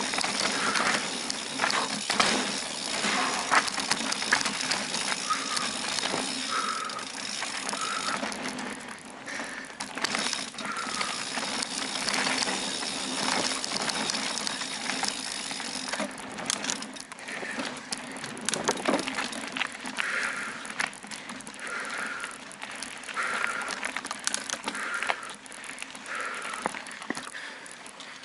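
Mountain bike rolling fast down a dirt forest trail: tyre noise on the ground with the chain and frame rattling and knocking over roots and rocks.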